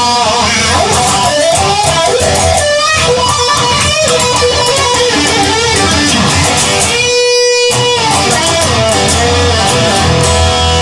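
Instrumental rock music: an electric guitar plays a melodic lead with bending notes over a bass line. About seven seconds in the low end drops out for under a second, leaving one held note, before the band comes back in.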